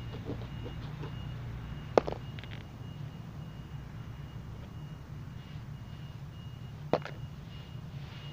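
A vehicle's reversing alarm beeping over a steady low engine rumble, with two sharp knocks, one about two seconds in and one near the end.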